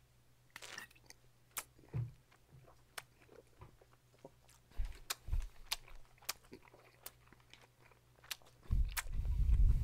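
A person swallowing a drink and chewing close to the microphone: a string of sharp, wet mouth clicks and smacks, with a short gulping sound about half a second in. Near the end a deep, rumbling thud, the loudest sound here, runs for about a second.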